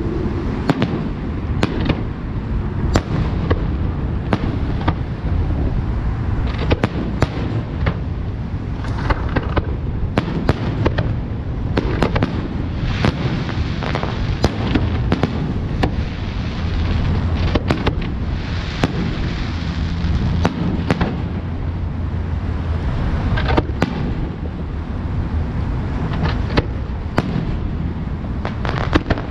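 Fireworks display: a dense run of sharp bangs, often several a second, over a continuous low rumble and crackle.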